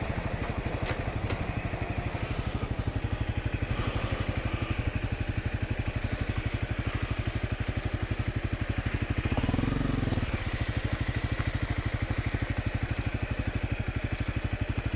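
Single-cylinder Honda dual-sport motorcycle engine running steadily at low revs, with a quick even pulse. A brief louder low swell comes about nine and a half seconds in.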